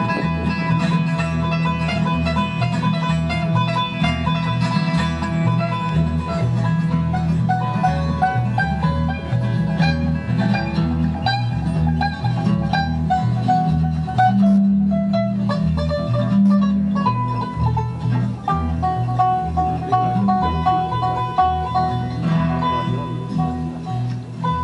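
Live bluegrass instrumental break: a banjo picking quick runs over strummed acoustic guitar and a plucked upright bass line.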